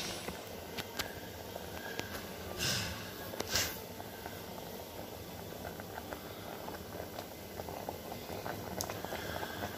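Water boiling under a mound of ragi (finger millet) flour in an aluminium pot: a steady bubbling crackle as the flour steams before being stirred into ragi kali. Two short hissy bursts come about two and a half and three and a half seconds in.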